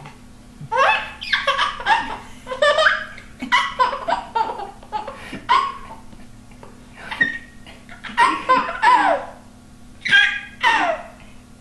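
A baby giggling in repeated bursts of laughter, with short pauses between them.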